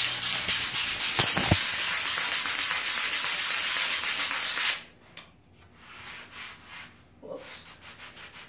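Aerosol can of brake cleaner spraying in one long, steady hiss onto spilled paint on a concrete floor; it cuts off suddenly a little past halfway through. Faint scrubbing strokes on the concrete follow.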